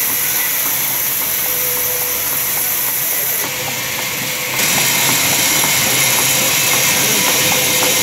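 Sawmill band saw ripping a large log lengthwise: a loud, steady hiss of blade through wood over the hum of the running machine, dipping briefly about three and a half seconds in before resuming.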